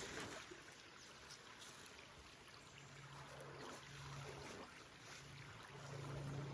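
Faint rush of flowing water, with a low steady hum that fades in and out, strongest near the end.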